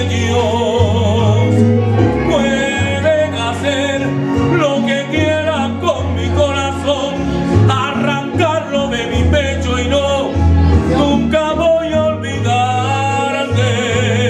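A man singing a slow Spanish-language romantic ballad, his long held notes wavering with vibrato, over instrumental accompaniment with steady bass notes.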